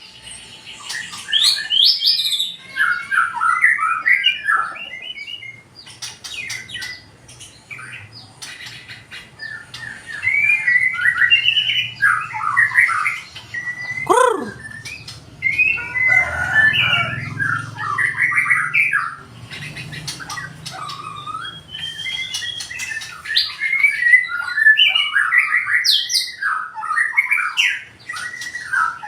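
White-rumped shama singing loud, varied phrases of whistles and chirps in rapid bursts, with short pauses between runs. About halfway through there is one long falling whistle.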